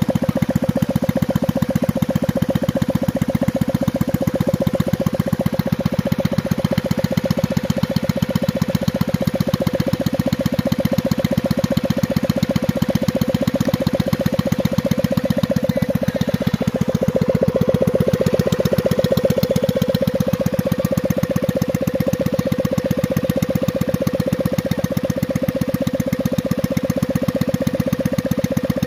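Rebuilt 110cc single-cylinder four-stroke engine in an old step-through motorcycle, breathing through a pod air filter, running steadily at idle on its stand as it is tested. It swells a little louder for a moment about 17 seconds in.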